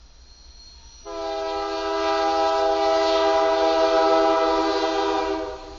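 Freight locomotive air horn, on the lead GE ES44AC of an approaching train, sounding one long steady chord for about four and a half seconds. It starts abruptly about a second in and cuts off near the end.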